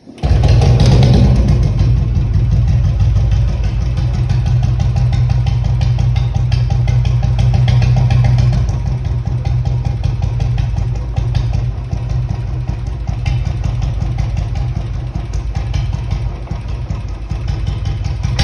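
Royal Enfield Bullet motorcycle's single-cylinder engine running with a dense, even exhaust thump, easing off slightly about halfway through.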